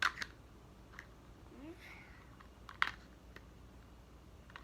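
Plastic toy cars and trucks being handled and knocked together: a few scattered sharp clicks and knocks, the loudest just under three seconds in.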